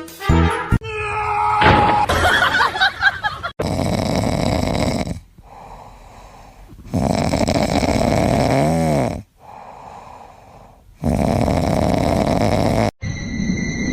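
Loud snoring: three long rasping breaths, about one every four seconds, with quieter breaths between them. A steady high tone starts just before the end.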